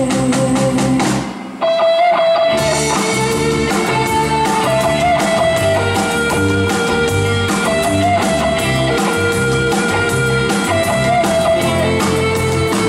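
Live rock band playing an instrumental passage: electric guitar melody over bass and drums. The sound drops out briefly about a second and a half in before the band comes back in.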